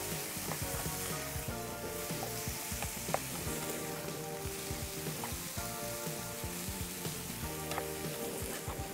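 Mushroom pieces sizzling as they fry in a nonstick pan, stirred and pushed around with a wooden spatula, with a few short clicks of the spatula against the pan.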